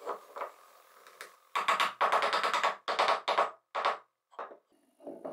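Short phrases of synthesizer music, loudest from about a second and a half in, broken by brief gaps.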